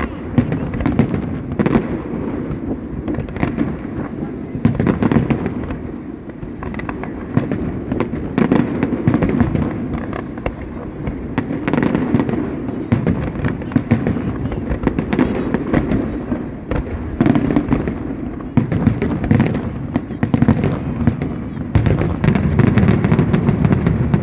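Fireworks display going off without pause: a dense, irregular run of bangs and crackles over a continuous low rumble, busiest near the end.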